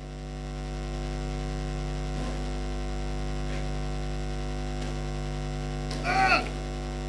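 Steady electrical mains hum, a low buzz with a stack of evenly held overtones, fading in over the first second. A short spoken exclamation breaks in about six seconds in.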